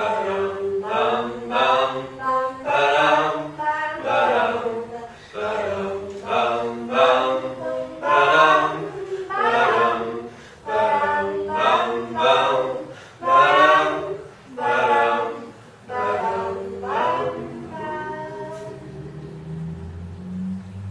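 Several voices singing a folk song together in harmony, phrase after phrase. The singing stops about three-quarters of the way through, leaving a low note that fades out.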